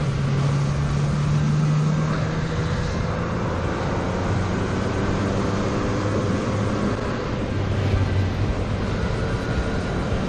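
Motorcycle engine running while riding at road speed, with steady wind and road noise over it; the engine note drops to a lower pitch about three seconds in.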